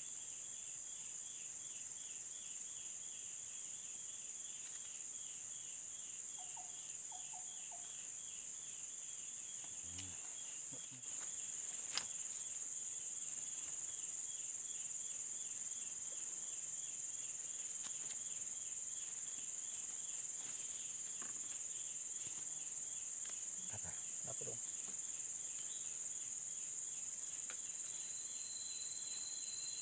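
Forest insects throughout: a steady high-pitched drone with a rapid, evenly pulsing chirp beneath it. A few short knocks and thuds come from bamboo poles being handled.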